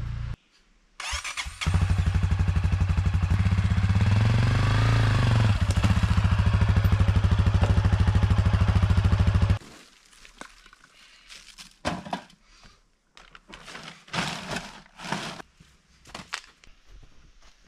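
Honda CRF dirt bike's single-cylinder four-stroke engine running, coming in about a second in, revving up and back down once, then stopping abruptly about halfway through. After it, scattered knocks and clatter of gear being handled.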